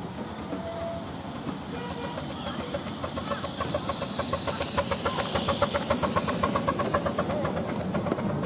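Miniature-railway steam train running on the track: a rapid, even beat builds up about three seconds in and fades near the end, over a steady hiss.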